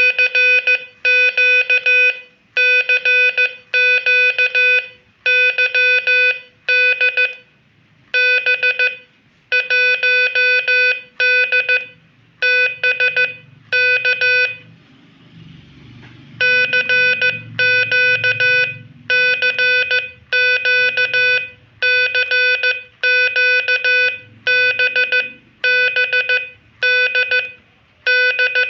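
Morse code (CW) tone of about 500 Hz keyed in dots and dashes at about 14 words per minute, spelling out a repeated CQ call, a general call for any station to answer. The letters come in short groups with one longer gap about half-way, where only a faint low rumble is heard.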